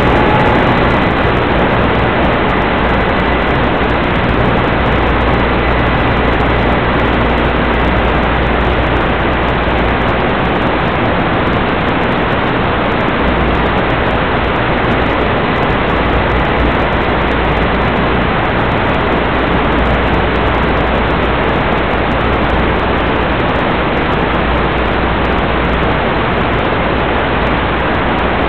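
Loud, steady hiss from the analog FPV video link's audio channel as received and recorded at the goggles, with a low rumble underneath that comes and goes.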